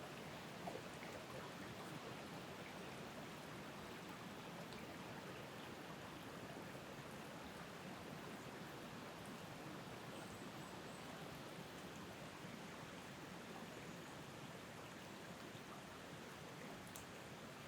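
Wind blowing through the tree tops, a steady hiss of rustling leaves.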